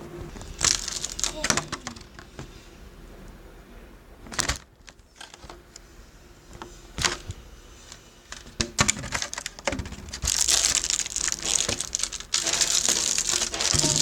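Slime being squeezed and worked by hand, crackling and clicking: scattered clicks at first, then dense crackling bursts in the last few seconds.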